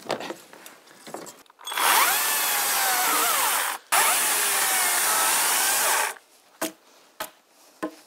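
Electric chainsaw cutting into a log in two runs of about two seconds each, its motor whine dipping and rising in pitch as the chain bites, and falling silent between and after the cuts. A few sharp single knocks follow near the end.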